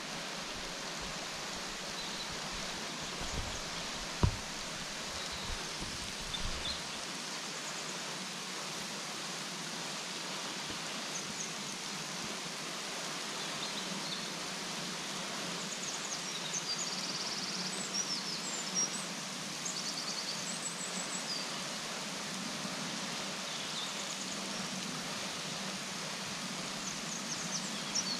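Henrhyd Falls waterfall giving a steady, even rush of falling water. Small birds chirp over it from about halfway through, and there is a single sharp knock about four seconds in.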